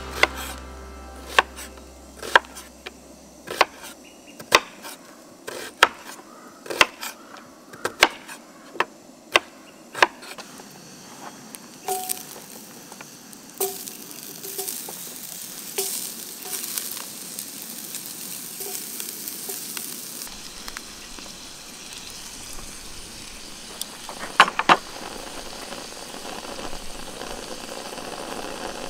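Knife chopping on a cutting board in sharp, evenly spaced strokes, about one a second, for the first ten seconds, then food sizzling in a hot pan. A couple of knocks come near the end.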